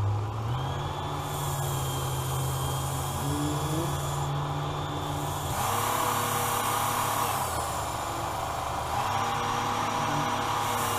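Work Sharp Ken Onion Edition knife sharpener's variable-speed motor and abrasive belt running steadily while a blade is sharpened on the belt. Its hum shifts in pitch a few times: about half a second in, near the middle and again near the end.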